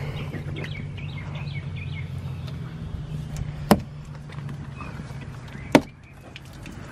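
Two sharp knocks about two seconds apart as a pickup truck's door is gripped by its lower edge and rocked by hand, draining rainwater trapped inside the door. Under them a low steady hum fades out a couple of seconds in.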